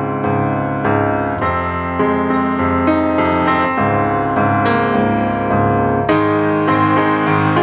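Background piano music: a calm melody of struck notes over held chords.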